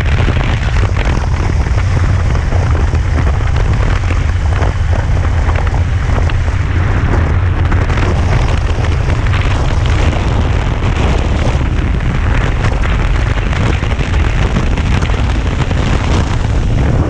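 Wind blasting across the microphone: a loud, steady low rumble with hiss over it.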